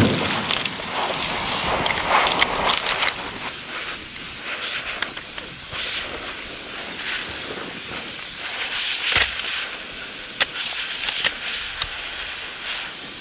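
Compressed-air hose blasting a jet of sand and dirt: a steady hiss, strongest for the first few seconds and then somewhat lower, with a few short knocks over it.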